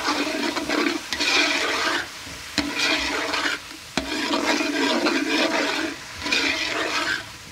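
A metal ladle stirring and scraping a spiced onion-tomato masala as it sizzles in oil in a steel pot, with a splash of water just added while it is fried down (bhuna). The stirring comes in strokes with short pauses, and the ladle clinks sharply against the pot twice.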